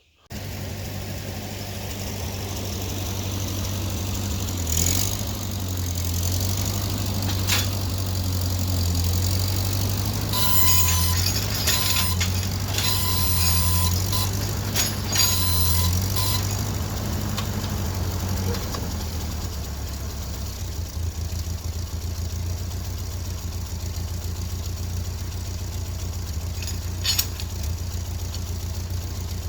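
Tractor engine running steadily, its pitch rising and falling briefly while it works, with metal clanks and squeaks in the middle.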